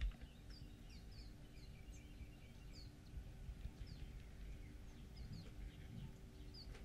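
Faint bird chirps: short falling notes repeating several times a second, over a low rumble and a steady hum.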